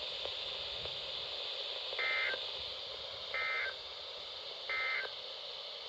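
Three short, identical bursts of digital data tone from a NOAA Weather Radio broadcast: the EAS/SAME end-of-message code, each about a third of a second long and about 1.3 seconds apart, over a steady radio hiss.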